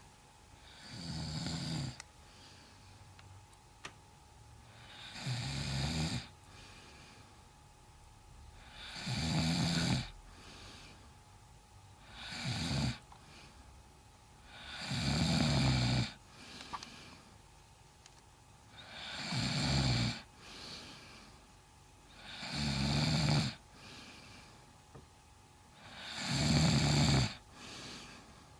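Loud, rhythmic snoring: about eight rasping snores, one every three to four seconds, with quieter breathing in between.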